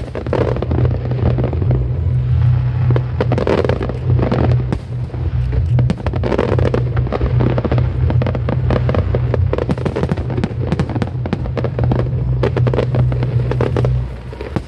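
Fireworks display: a dense, continuous barrage of shell bursts and crackling, with a steady low rumble underneath.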